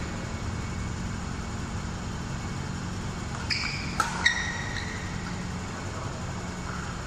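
A badminton racket strikes the shuttlecock once with a sharp crack about four seconds in. Short, high squeaks of court shoes on the synthetic mat come just before and after the hit, over a steady low hum.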